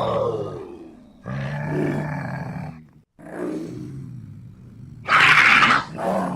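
Leopard growling and roaring in separate drawn-out calls: one trails off at the start, two more follow with short pauses, and a loud harsh rasp about five seconds in is the loudest sound, before another call begins near the end.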